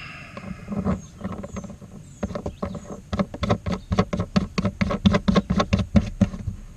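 Small clicks and taps of a nut and washer being threaded by hand onto a plastic livewell fitting inside the tank. The clicks come a few at a time at first, then fast and steady through the second half.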